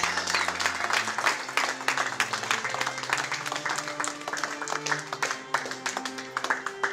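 Guests applauding, with many quick claps, over a violin and cello playing slow held notes.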